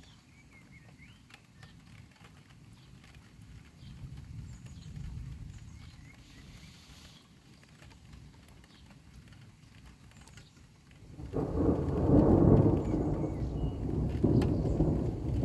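Thunder during a heavy storm: a faint low roll about four seconds in, then a loud peal that sets in suddenly about eleven seconds in and keeps rolling.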